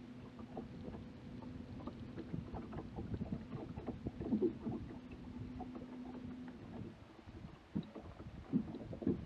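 Steady hum of a bass boat's electric trolling motor, which stops about two-thirds of the way through, with scattered light knocks on the boat.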